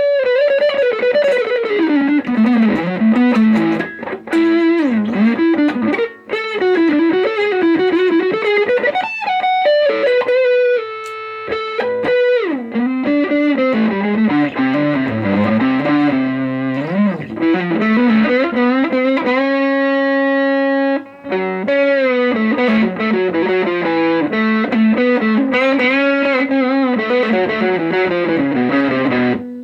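Les Paul electric guitar played through a CE Pedals FET Dream effects pedal: single-note melodic lines with bends and slides, and a long held note about twenty seconds in.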